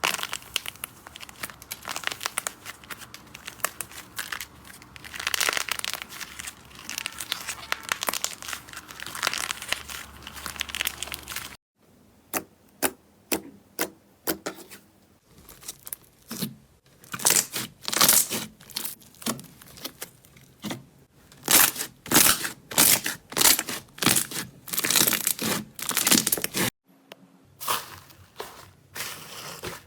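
Slime being squeezed and pressed by hand, crinkling and crackling. At first it is a dense, continuous crackle. After an abrupt cut it turns to separate sharp sticky pops and clicks, several a second.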